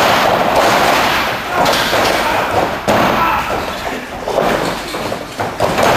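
Wrestlers' bodies thudding onto the padded ring floor several times, sudden loud impacts over voices.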